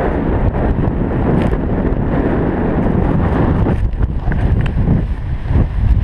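Loud freefall wind buffeting the microphone of a hand-mounted camera on a tandem skydive: a steady rush of airstream noise heaviest in the low end, with no words.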